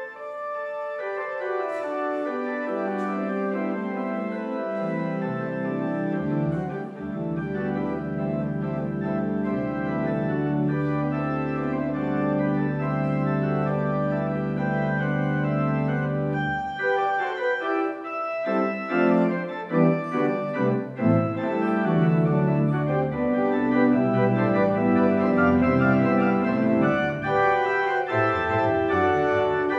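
Allen digital church organ playing slow sustained chords. A bass line steps down over the first few seconds, a low pedal note is held for about ten seconds, and then the harmony moves more quickly.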